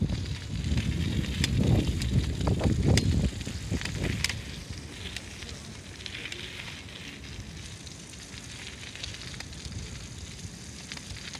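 Bicycle riding on wet pavement: tyres hissing and crackling on the wet ground, with scattered rattling clicks. A heavy low rumble fills the first three seconds or so, then eases to a steadier hiss.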